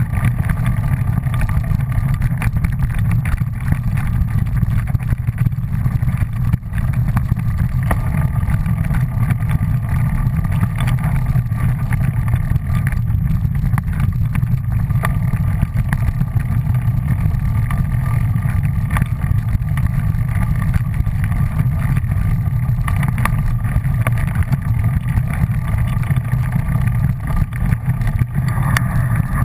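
Steady low rumble of a fast ride along a leaf-covered dirt trail, with wind buffeting the camera microphone.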